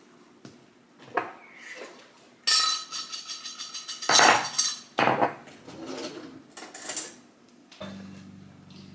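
Utensils clinking and scraping against plates and pans while food is served onto a plate, with a ringing metallic scrape and several loud clatters. A low steady hum starts near the end.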